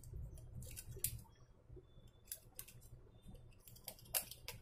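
Faint, irregular sharp ticks and scrapes of small metal electronic parts being handled with fingers and a screwdriver on a workbench, over a low steady hum.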